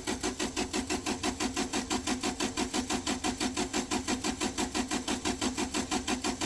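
Electric fuel pump on an Onan Cummins generator ticking rapidly and evenly, about eight to nine clicks a second, as it builds fuel pressure. It holds at about 2 to 4 psi, the low pressure this pump is meant to make, so the pump is building pressure.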